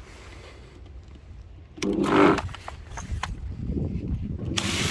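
A brief loud pitched whirr about two seconds in, then a steady hiss of spraying water from the washer that starts near the end.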